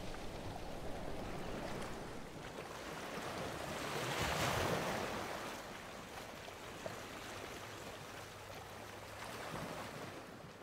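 Atlantic surf breaking on a sandy beach: a steady rush of waves that swells as a wave breaks about four seconds in and again near the end, then fades out.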